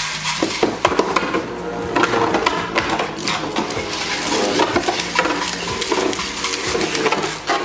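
Infinity Nado battle tops spinning and clashing in a plastic stadium: a busy run of sharp clicks and knocks as they hit each other and the arena walls.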